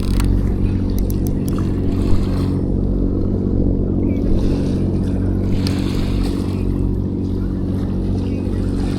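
An engine running steadily, a low, even drone that holds the same pitch throughout.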